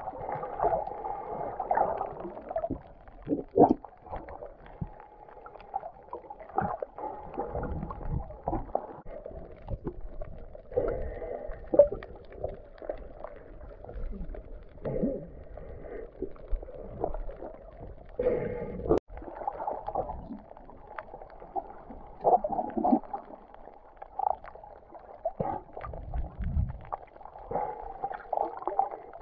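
Muffled underwater sound picked up through a camera's waterproof housing: water sloshing and gurgling in uneven swells, with a few sharp knocks.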